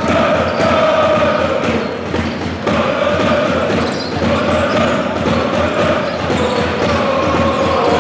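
A large crowd of basketball supporters singing a chant together in unison in an indoor arena, over a run of low thumps.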